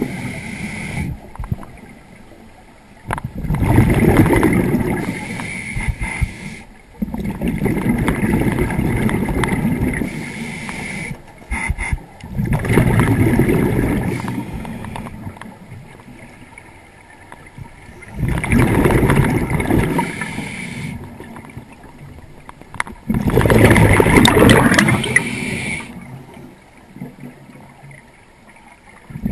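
Scuba diver breathing through a regulator underwater: a loud gurgling burst of exhaust bubbles with each exhalation, about every five seconds, with quieter stretches between breaths.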